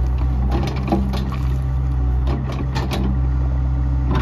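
Doosan DX85R-3 mini excavator's Yanmar diesel engine running steadily under digging load while its bucket scrapes and scoops broken concrete and rock, with scattered clacks and knocks of rubble. A higher whine comes in twice as the arm works.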